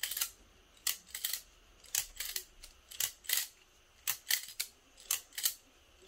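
Nabalis G10 Parallelogram balisong trainer being flipped open and closed as a sound test, its handles and blade clacking together in sharp clicks, mostly in pairs about once a second.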